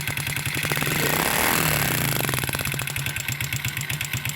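Freshly overhauled Honda XRM 125's single-cylinder four-stroke engine running at idle. It is revved briefly about a second in, then drops back to idle.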